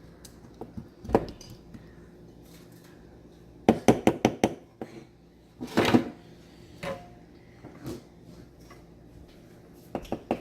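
A utensil clinking against a dish while chopped red onion, garlic and honey are mixed together. There are scattered sharp clinks, with a quick run of them about four seconds in and a louder cluster around six seconds.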